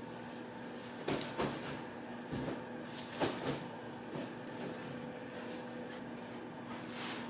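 Pillows and a quilted comforter being handled while a bed is made: a few short rustles and soft thumps, about a second in and again about three seconds in, over a steady low hum.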